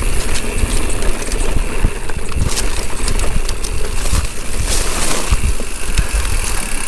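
Mountain bike riding fast down a rough downhill trail: wind rumbling on the microphone, with frequent clicks and knocks of the bike rattling over the ground.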